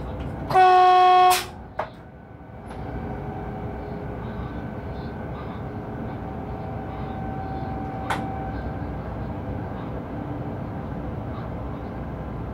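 Electric locomotive's horn sounded once from the cab: a single steady tone of about a second, starting and stopping abruptly. Around it, the steady running rumble of the train heard from inside the cab.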